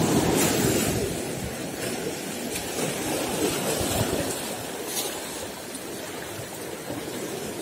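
Sea surf washing and foaming over shoreline rocks, a steady rush of water that is loudest at the start and eases off over the next few seconds.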